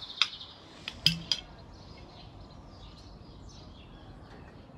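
Three sharp clinks of a glass bottle being handled in the first second and a half, then faint birdsong chirping.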